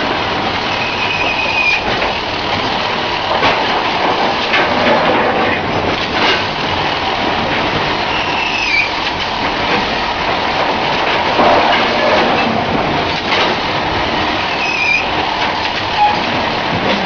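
Coal bagging machine running with a steady clattering rattle and a short, falling squeal three times.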